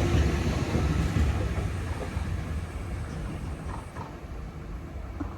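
Oscar H-set electric intercity train running past on the tracks, its low rumble and wheel hiss dying away steadily as it recedes.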